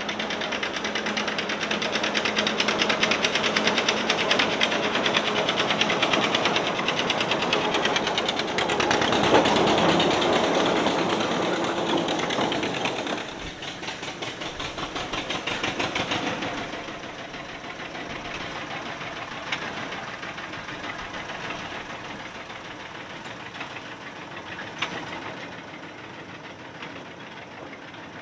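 Small narrow-gauge diesel locomotive engine running with a fast, even beat as it approaches, loudest about nine seconds in. About thirteen seconds in it drops to a quieter steady engine sound.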